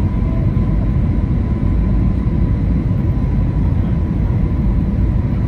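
Airbus A320 cabin noise heard from a window seat in flight: a steady roar of engines and airflow, heaviest in the low end, with a faint steady whine above it.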